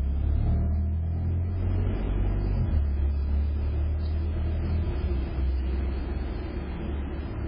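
Steady low rumble, heard through a doorbell camera's microphone.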